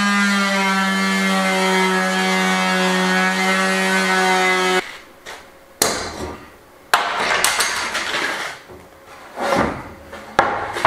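Electric sander running steadily at a fixed pitch on a reclaimed-timber board, switched off sharply about five seconds in. Then a few sharp metal clicks and wooden knocks as F-clamps are loosened and the board is shifted on the bench.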